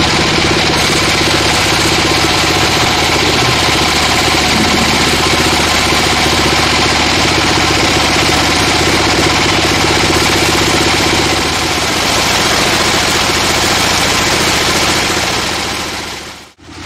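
A log band sawmill running, its band saw blade cutting a plank off a log with a steady, loud machine hum and sawing noise. The sound drops away abruptly near the end.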